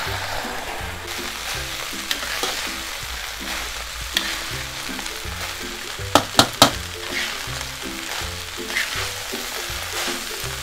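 Cooked rice being stir-fried with shrimp paste in a metal pan: a steady sizzle with a metal spatula scraping and turning the rice. About six seconds in, the spatula clanks sharply three times against the pan. Background music plays throughout.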